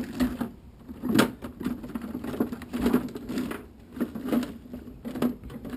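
Objects being moved around while someone rummages through a cluttered workshop, giving an irregular run of short knocks, clacks and rattles.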